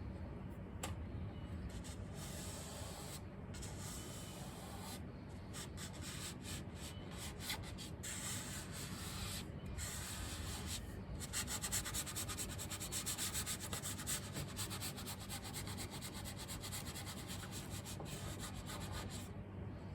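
Hand rubbing on a decal laid on a wooden piano soundboard: a dry, scratchy hiss that starts and stops in the first half, then turns into quick, continuous back-and-forth strokes for the last several seconds.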